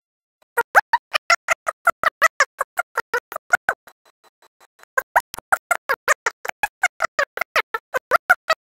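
A fast, even run of short pitched blips, about five a second, that breaks off for about a second midway and then resumes: a rhythmic electronic soundtrack.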